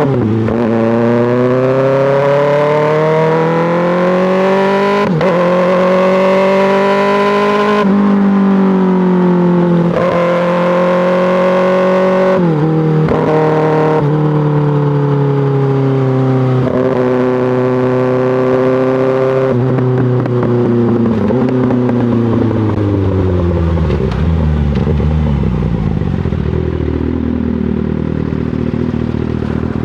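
2024 Kawasaki ZX-6R's inline-four through an M4 GP slip-on exhaust, accelerating up through the gears with a sharp drop in pitch at each upshift, about every two to three seconds. It then holds a steady cruise, and after that the throttle is rolled off so the note falls away for several seconds before picking up again at the end.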